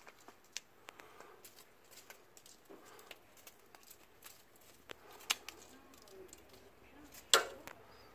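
Scattered light clicks and taps of a cat playing with a feather toy on a string on concrete under a metal wheelbarrow, with one sharp, much louder knock about seven seconds in.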